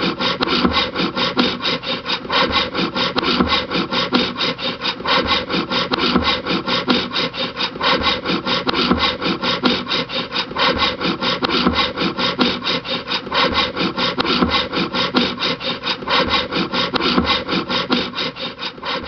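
Handsaw cutting through a wooden board by hand, in quick, even back-and-forth strokes, several a second, at a steady pace.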